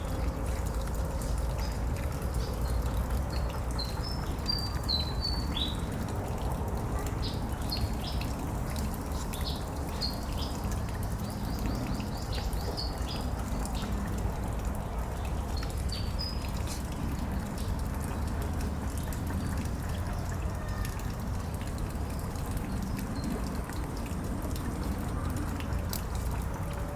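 A bird giving a run of short, high chirps between about 3 and 16 seconds in, then falling silent, over a steady low background rumble.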